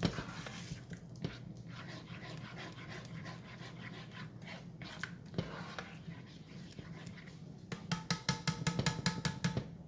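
A spoon or whisk stirring thick cheese sauce in a metal saucepan, scraping and clicking against the pan, then beating fast from about eight seconds in so the pan rings with each stroke, over a steady low hum.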